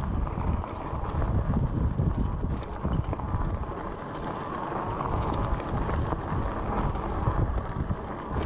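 Fat-tyre e-bike rolling over a rough, bumpy track, with an uneven rumble and irregular knocks and rattles, and wind buffeting the microphone.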